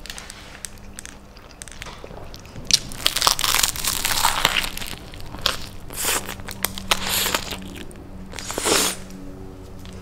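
Biting into and chewing a soft-roll sandwich filled with crisp lettuce and chicken, crunching in several bouts, with the paper wrapper crinkling.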